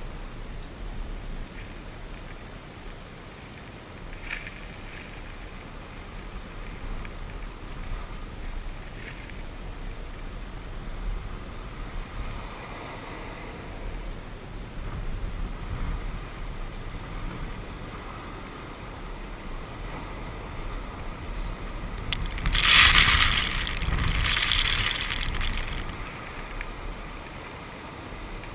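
Ocean surf with wind on the microphone and a steady low rumble. A loud wash of surf surges in about two-thirds of the way through and lasts a few seconds.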